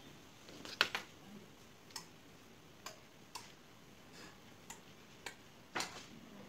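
Sharp separate clicks, about eight at uneven intervals, as channels of a glass touch-switch panel are switched from a handheld IR remote.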